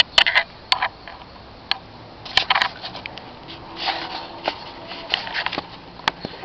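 Irregular small splashes and clicks: a toddler's feet stepping through ankle-deep water in a plastic above-ground pool.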